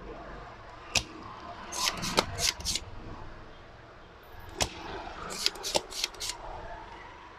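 Spring-loaded desoldering pump (solder sucker) snapping as its plunger is released to draw molten solder off keyboard switch pins. There are two sharp snaps, about a second in and again just past halfway, each followed by a quick run of small clicks.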